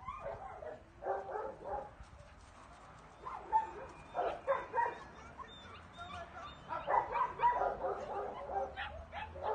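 A group of puppies yipping and whining, in three bunches of short calls a couple of seconds apart.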